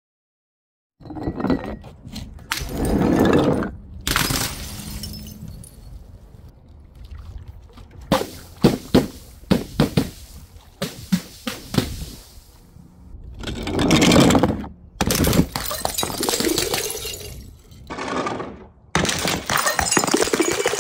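Glass bottles and jars smashing one after another: a series of loud shattering crashes, with a quick run of sharp clinks of glass in the middle.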